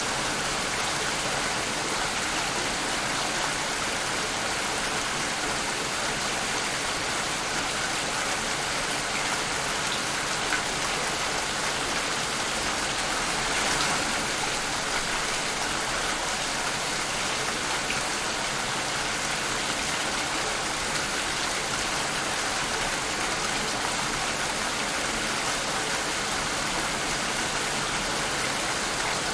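Steady rain falling, an even hiss of many drops with no let-up, swelling slightly about halfway through.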